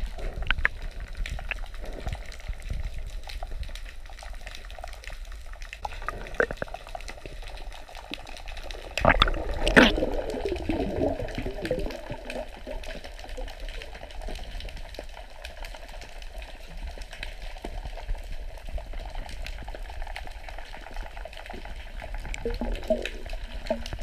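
Muffled water noise from a camera held underwater: a steady low rumble with small clicks and bubbling, and a louder rush of bubbling water about nine to ten seconds in.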